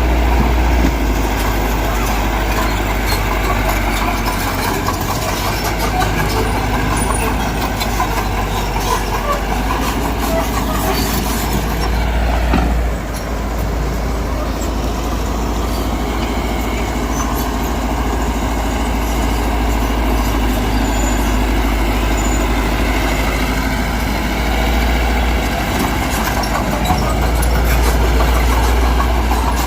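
Heavy diesel earthmoving machinery running steadily, with a deep engine drone and scattered clanks. The level dips briefly about halfway through.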